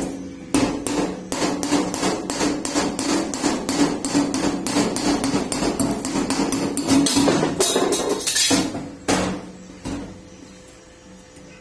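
Rapid, even hammer blows on metal, about four to five strikes a second, stopping about nine seconds in.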